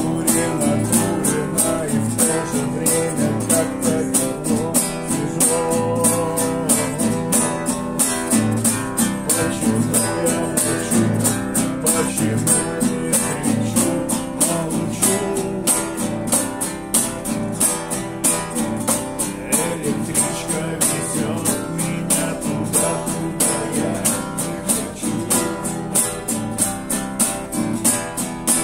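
Two acoustic guitars strummed together in a quick, steady rhythm, accompanying male voices singing a song.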